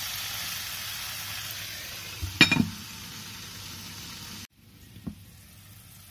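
Curry sizzling in a frying pan, then a glass lid clinks down onto the pan about two and a half seconds in and the sizzle turns quieter. After a sudden cut the pan simmers faintly, with a light click a little later.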